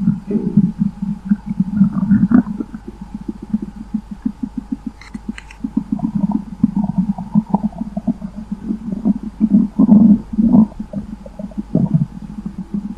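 Stomach rumbling and gurgling: rapid low bubbling pulses in bursts, easing off about three and a half seconds in and picking up again about six seconds in.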